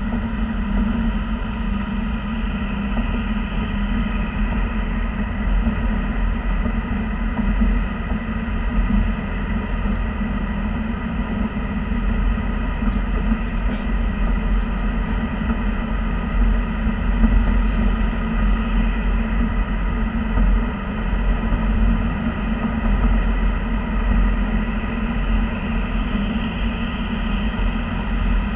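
Car cabin noise while cruising on a highway: a steady low rumble of tyres, engine and wind with no change in pace.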